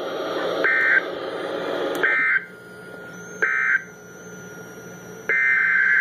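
NOAA Weather Radio sending EAS digital data bursts, harsh buzzy two-tone screeches: three short bursts about a second and a half apart, which are the end-of-message code closing a flash flood warning, then a longer burst about five seconds in, which is the header of the next alert. There is radio hiss under the bursts.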